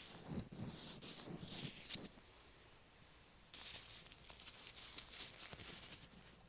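Latex-gloved fingertips rubbing and tapping right on an earphone microphone, making close, crackly, sticky sounds. The rubbing stops about two seconds in and starts again about a second and a half later.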